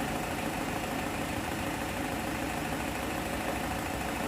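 Isuzu Trooper engine idling steadily.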